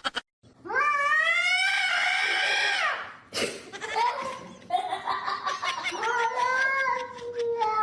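A cat yowling: two long, drawn-out calls, the first rising then falling in pitch, the second held longer, with a short click between them.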